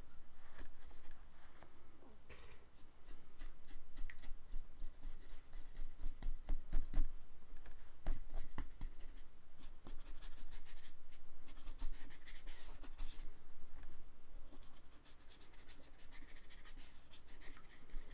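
Irregular scratchy strokes of an ink tool on paper as a wash drawing is worked over, over a steady low hum.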